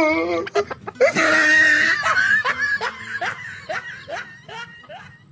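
A person laughing, likely an inserted laugh sound effect: a loud burst about a second in, then a run of short falling 'ha's about three a second that fade out toward the end.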